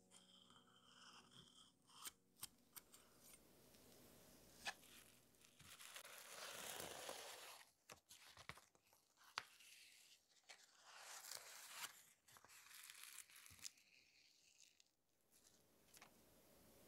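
Faint rustling as a baking-sheet collar is peeled away from the soft side of a cheesecake. The peeling comes in a few drawn-out stretches, with scattered light clicks and taps between them.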